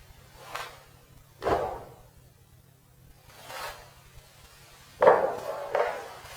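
A handful of separate knocks and handling sounds, with two sharper, louder hits about a second and a half and five seconds in.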